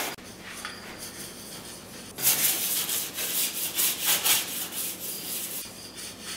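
Sponge scrubbing a glass-top electric stove, with uneven back-and-forth rubbing strokes that grow louder about two seconds in and ease off near the end.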